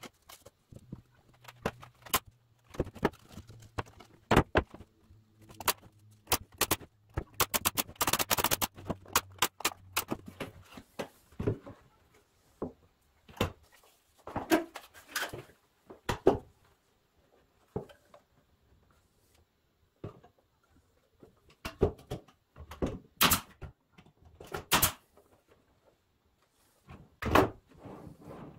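Woodworking assembly in a shop: a long series of sharp clacks and knocks of wood parts being handled and set down, with a dense clatter about eight seconds in and a low hum during the first ten seconds. Nail gun shots into the pine cabinet frame around the middle, and a loud knock near the end as a drawer on metal slides is pushed into the cabinet.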